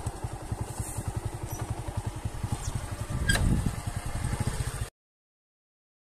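A small engine running with a rapid, even low throb, and one sharp click a little past three seconds in. The sound cuts out completely about five seconds in.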